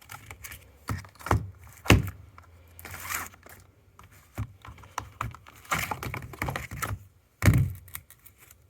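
Sound-equipped replica lightsaber (Dragon Saber) with a low steady hum broken by a string of sharp clicks and knocks and a few short crackling bursts, the hum stopping about seven seconds in.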